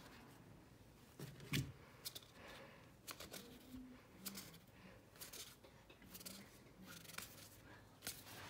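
Baseball trading cards being handled and flipped through, a soft scatter of small card clicks and snaps with a louder knock about a second and a half in.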